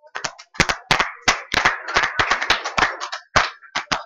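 Scattered applause from a small audience: a few people clapping unevenly, thinning out near the end.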